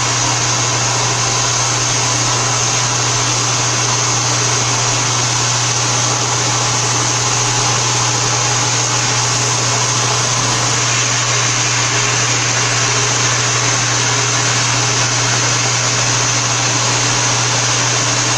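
CNC milling machine running steadily while cutting UHMW plastic, a constant whir with a low hum and a hiss, no breaks or knocks.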